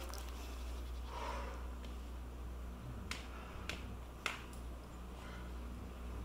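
Three short, sharp clicks about half a second apart, a little past halfway through, over a steady low rumble.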